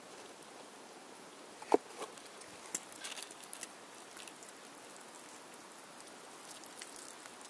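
Handling noise on a mud-caked RC truck: one sharp knock a little under two seconds in, then a few light clicks, over a steady hiss.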